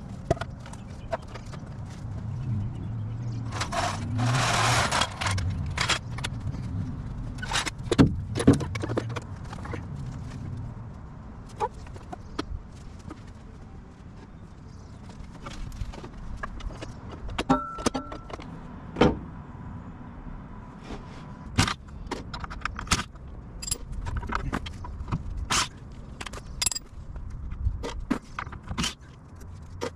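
Handling noises of work under a truck: wooden boards set down on the ground, a steel floor jack put in place, and metal tools clinking. It comes as an irregular string of knocks, clinks and scrapes, with two loud knocks about eight seconds in.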